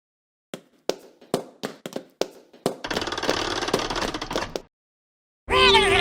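Animation sound effects: a string of sharp taps and knocks, then about two seconds of rumbling clatter that stops abruptly. After a short silence, a sudden loud sound starts near the end, with falling whistle-like tones over a steady ringing tone.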